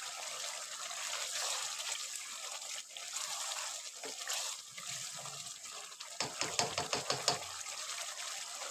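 Chicken curry gravy sizzling and bubbling in a pot on a high flame as a spatula stirs it, a steady hiss. About six seconds in comes a quick run of knocks and scrapes, the spatula against the pot.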